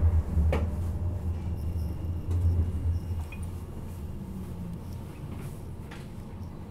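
A Class 399 Citylink tram-train's low running rumble, heard from inside the passenger saloon, dies away over the first three seconds as the tram slows. A few faint clicks and knocks follow.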